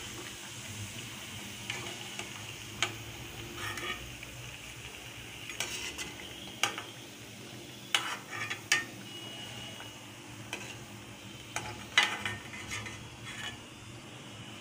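Oil sizzling in a kadai as fried tikiyas, done to golden, are lifted out with a steel slotted spoon. The spoon clicks and scrapes against the pan and plate a dozen or so times, the sharpest about eight and twelve seconds in.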